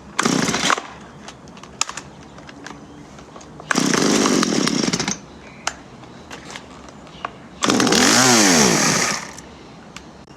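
Stihl MS 170 two-stroke chainsaw firing up briefly and dying three times, the last time revving up and then falling away. The saw won't keep running, which the owner takes for it running out of fuel.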